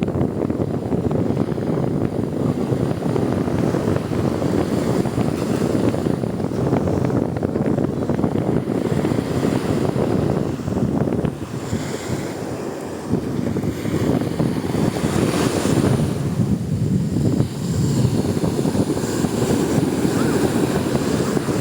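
Sea waves washing with wind buffeting the microphone: a steady rushing that swells and eases, with a brief lull about halfway through.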